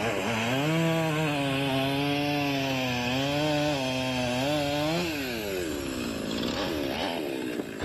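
Petrol chainsaw cutting into a block of ice, running at a steady high speed. About five seconds in the throttle is let off and the engine note falls away.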